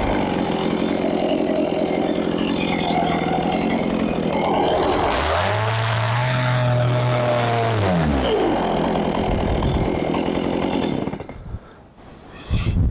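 Chainsaw engine running at a low, steady speed, revving up for a couple of seconds near the middle and dropping back, then cutting off about eleven seconds in, followed by a couple of short knocks.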